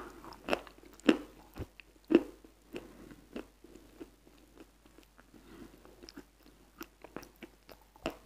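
Close-miked wet, crunchy chewing of a white dessert soaked in cream. The chews come about two a second and are loudest in the first couple of seconds, then turn softer and more spread out.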